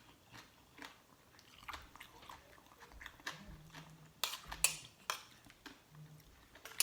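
Close-up eating sounds: a person chewing and biting on chicken feet and papaya salad, with wet clicks and smacks that get louder and thicker about four to five seconds in, and a few short low hums.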